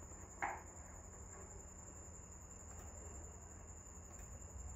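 Faint room tone: a steady high-pitched whine and a low hum, with one short soft sound about half a second in.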